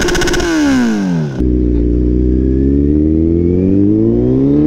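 Motorcycle engine revving: a throttle blip whose pitch falls back, then the engine note climbing steadily as the bike accelerates away.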